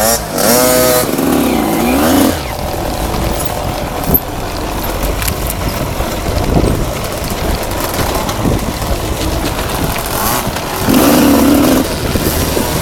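Enduro motorcycle engine revving up and down in the first two seconds, then running more steadily at lower pitch with a rough noisy rumble, before rising louder again near the end.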